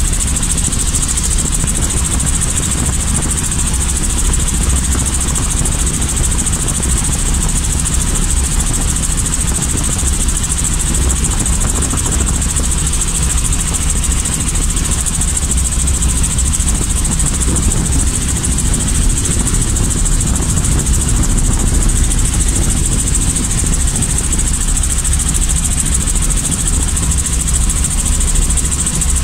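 Robinson light helicopter's engine and rotor running steadily: a loud, unbroken drone with a constant high hiss over it.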